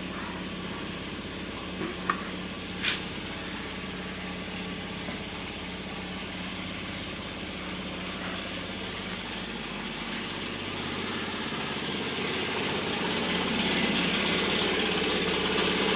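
Small electric air compressor running steadily: a low hum under a steady hiss, getting louder over the last few seconds. Two brief knocks come about two and three seconds in.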